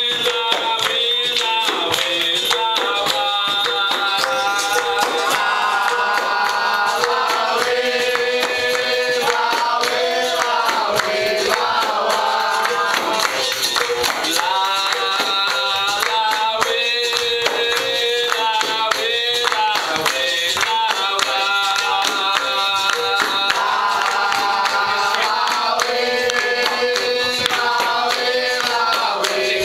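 Capoeira roda music: a group singing together over pandeiros, a berimbau and steady hand-clapping.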